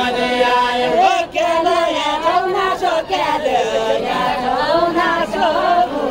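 Several voices singing a Deuda folk song together without instruments, a gliding, chant-like melody that breaks briefly about a second in.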